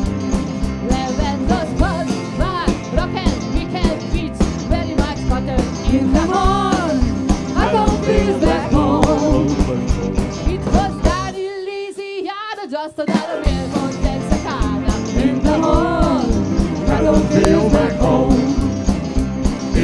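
Live band with electric guitars, bass, drums and several singers playing a country-rock song with a steady beat. About eleven seconds in, the bass and drums drop out for roughly two seconds before the full band comes back in.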